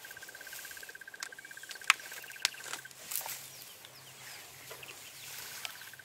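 Bush ambience: a steady, rapidly pulsing trill at one pitch, which breaks off near the middle and starts again near the end, with a few sharp clicks, the loudest about two seconds in.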